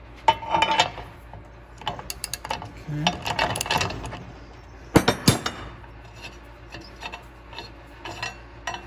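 Metal-on-metal handling of a threaded steel bushing and shaft in a steel upper control arm: scraping and rasping as the parts are worked by hand, a sharp clink about five seconds in, then light ticking about twice a second.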